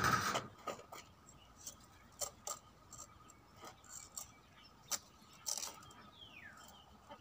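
A loud clatter against a sheet-metal box right at the start. It is followed by scattered light clicks, taps and scrapes of a small knife working at a papaya trunk.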